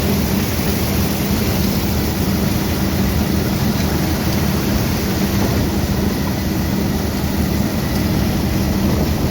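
Vintage Caterpillar crawler tractor running steadily, heard from aboard the machine, with a constant engine drone under a wide rushing noise.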